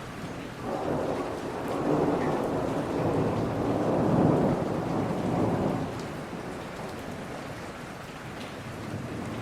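Steady rain with a long roll of thunder that builds about a second in, is loudest near the middle and dies away after about six seconds.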